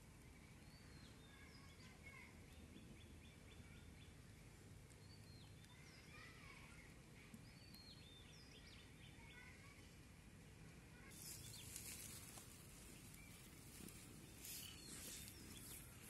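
Faint outdoor ambience with small birds chirping and ticking in the distance. About two-thirds of the way through, a louder rustling and handling noise comes in, with a few stronger swells near the end.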